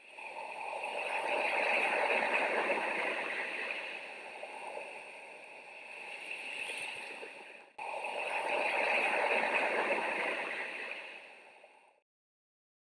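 Rushing, gurgling water in two stretches, each swelling and fading, with a sudden break about eight seconds in.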